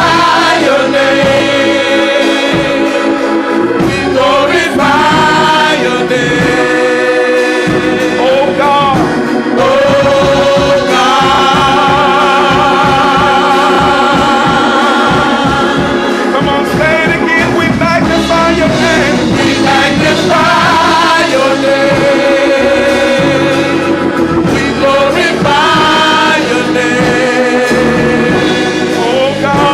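Gospel worship song: voices singing sustained, wavering lines over instrumental accompaniment.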